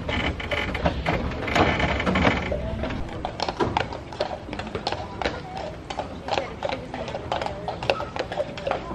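A horse's hooves clip-clopping on a paved road while it pulls a wooden wagon, with the wagon rattling along behind. The hoof knocks come through most clearly after the first few seconds.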